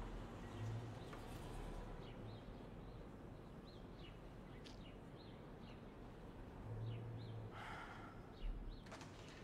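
Faint outdoor birdsong: many short, high chirps at irregular intervals, over a low background rumble.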